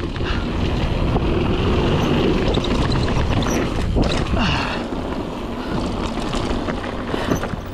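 Mountain bike riding fast down a dirt trail: a steady rumble of tyres and wind on the microphone, with many short clicks and rattles from the bike over the bumps.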